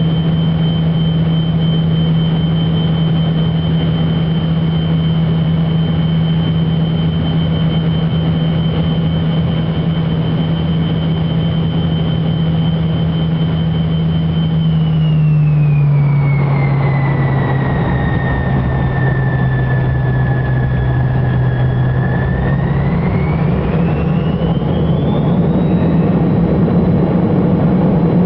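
Tu-134 jet engines heard from inside the cabin beside the engine: a steady high whine over a low hum on final approach. About halfway through, the whine falls as the engines spool down on touchdown, then a few seconds before the end it rises again to a higher steady pitch as they spool back up on the landing roll.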